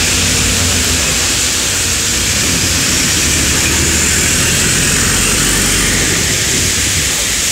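King Long XMQ6126G 12 m city bus pulling away from the stop on a wet road: its engine hums low under the steady hiss of tyre spray and rain.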